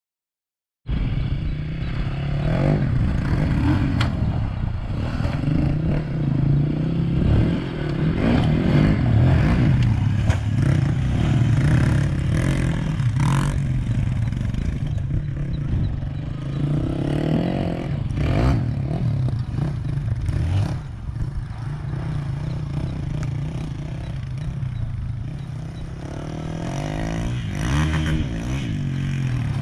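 Motorcycle engines running and revving on a dirt track, rising in pitch a few times, with scattered clattering. The sound starts suddenly about a second in.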